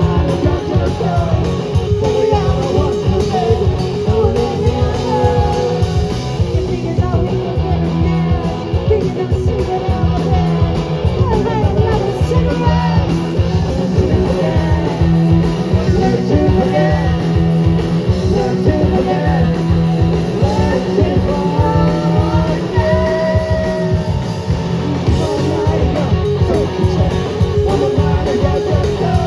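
Live punk rock band playing amplified: sung vocals over electric guitar, electric bass and a steady drum beat.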